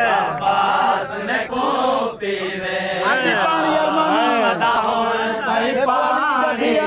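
Men's voices chanting a noha, a Shia mourning lament, unaccompanied, in long phrases that rise and fall in pitch.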